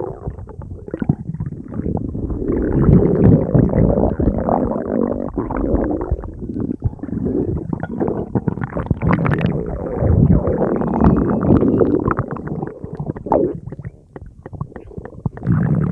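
Stomach rumbling and gurgling: continuous irregular low churning and bubbling, easing briefly about two seconds before the end.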